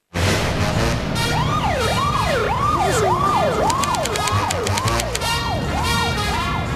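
TV title music with a steady beat, joined about a second in by a siren sound effect sweeping up and down about twice a second, fading toward the end.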